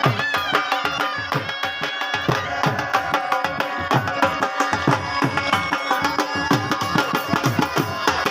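Music driven by fast hand-drum strokes, the low drum's pitch sliding down on each stroke, under a continuous melody.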